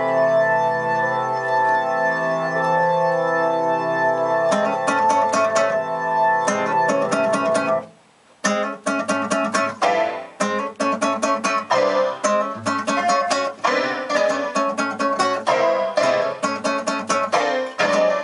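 Music: held organ-like chords, then fast plucked or keyboard notes. It cuts out briefly about eight seconds in and resumes as a rapid run of short notes.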